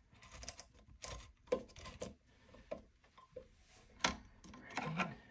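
Irregular clicks, knocks and short scrapes of a screwdriver and fingers working a plastic toilet-seat mounting bracket as it is straightened on the bowl. The loudest knock comes about four seconds in.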